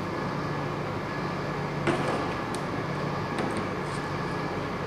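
A few light clinks of glass as beer is poured from glass bottles into beer glasses, over a steady background hum.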